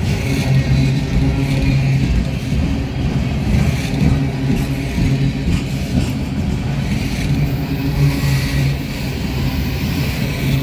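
Freight train rolling past: a steady rumble with a constant low engine drone and no horn.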